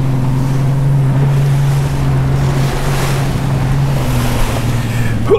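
Motorboat running at steady speed through chop: a steady low engine drone under hull spray and water rushing past, with heavy wind buffeting the microphone.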